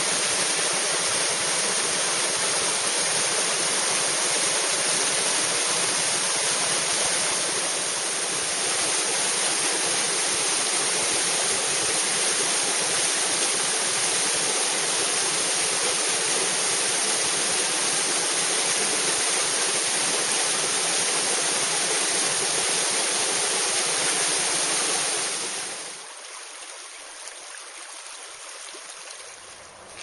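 Small cascading waterfall splashing into a rock pool: a loud, steady rush of falling water. The rushing drops away suddenly about four seconds before the end, leaving a much quieter background.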